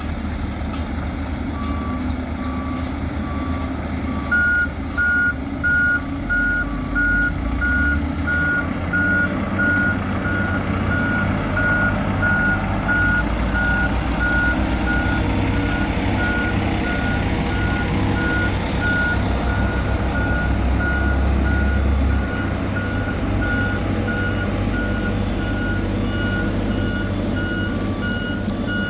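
Reversing alarms beeping on heavy road-paving machinery over the low, steady run of diesel engines. A lower-pitched alarm beeps briefly at first, then a higher one beeps steadily at about two beeps a second, and a third alarm of different pitch joins near the end.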